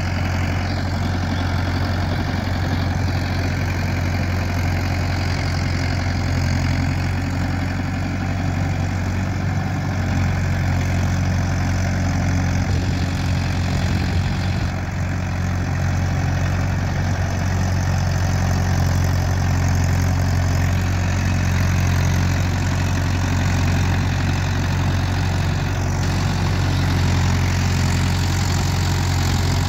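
Mahindra Yuvo 585 4WD tractor's 50 hp direct-injection diesel engine running steadily as it pulls a rotavator through a flooded, muddy field, with a strong, even low hum.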